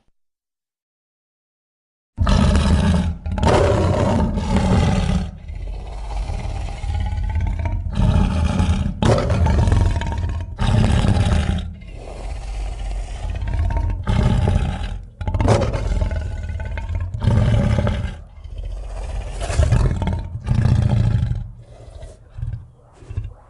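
Silence for about two seconds, then a run of loud, rough monster roars and shrieks from a horror creature sound effect, one after another, growing shorter and choppier near the end.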